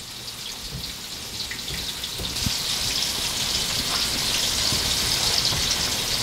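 Breaded pike pieces frying in hot oil in a cast-iron skillet: a steady sizzle that grows louder about two seconds in.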